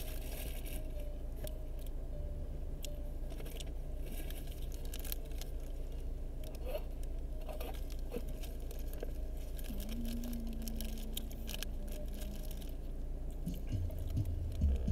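A person chewing a burger, with scattered small clicks and crinkles of food wrapping, over a steady low hum.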